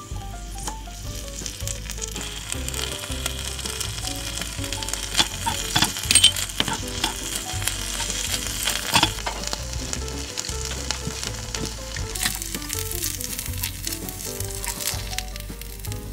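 Ground beef, cabbage and carrot sizzling as they stir-fry in a small steel wok, with a metal spoon clinking and scraping against the pan, the sharpest clicks about five to nine seconds in. Soft background music plays underneath.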